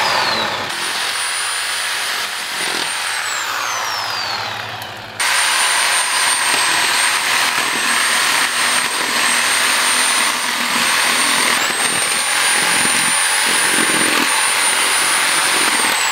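Electric reciprocating saw cutting through beef ribs: a high motor whine over the rasp of the blade. The motor winds down with a falling whine a few seconds in, then starts again about five seconds in and runs steadily.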